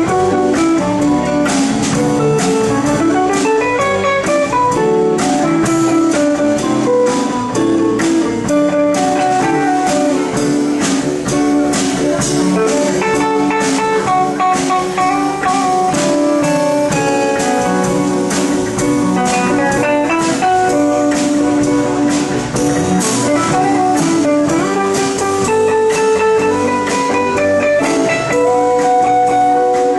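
Live jazz band playing an instrumental tune: guitar lines over bass and a drum kit with steady cymbal strokes.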